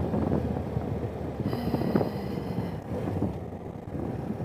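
BMW F800GS parallel-twin engine running as the motorcycle rides along, with wind noise on the helmet-mounted microphone.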